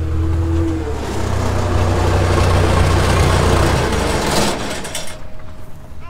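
Bulldozer's diesel engine running loud under load while towing a stuck small tractor, with a broad rush of noise building over the first few seconds, then easing off about five seconds in.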